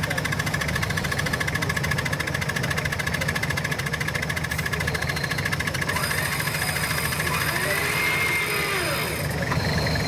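Off-road 4x4's engine running steadily, with an even, rapid pulse to its note.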